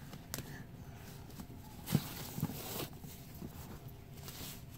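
Ribbon being pulled loose from a black cardboard gift box, with soft rustling and a few light knocks as the box is handled; one louder knock about two seconds in.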